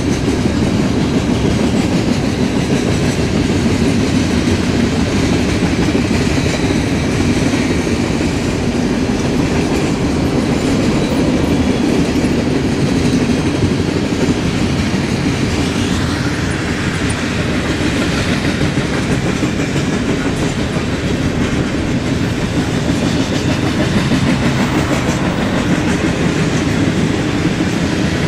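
Freight train cars (boxcars, tank cars and lumber flatcars) rolling past, a steady, even noise of steel wheels on the rails.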